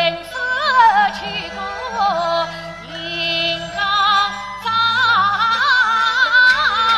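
A woman singing a Yue opera aria in a high voice, long notes bent and ornamented with a wide vibrato, over instrumental accompaniment.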